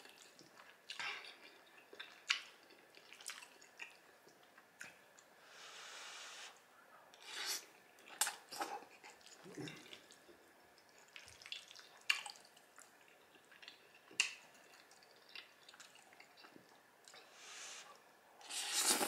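Close-miked eating of cheesy baked spaghetti: wet, squishy chewing and mouth sounds broken by scattered sharp clicks, with a louder slurp of noodles near the end.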